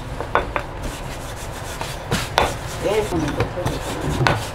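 Thin wooden rolling pin rolling out a ball of hotteok dough on a floured wooden board: a steady rubbing, broken by a few sharp knocks of wood on wood.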